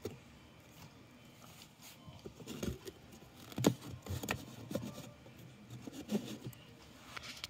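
Light rustling, scraping and small knocks of toys being handled and moved about, in scattered bursts.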